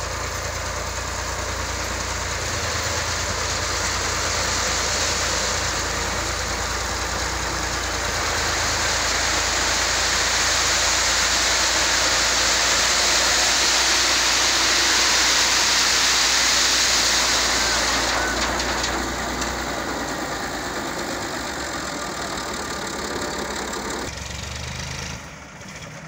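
Massey Ferguson tractor's diesel engine running steadily while its tipper trailer dumps a load of sub-base gravel. A rushing hiss of sliding stones builds through the middle and then eases off.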